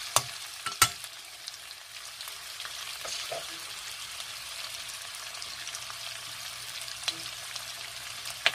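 Vienna sausages and chopped vegetables sizzling steadily as they sauté in a nonstick frying pan, with a couple of sharp clicks of the stirring utensil against the pan in the first second.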